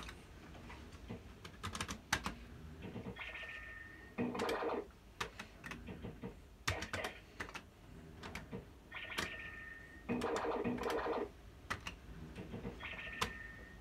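QPS Yabba Dabba Dough fruit machine in play: sharp clicks of buttons and reels, and three times a short held electronic tone followed by a burst of machine sound as a game is played.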